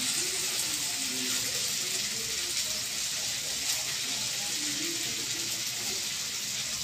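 A steady hiss with faint, indistinct voices underneath.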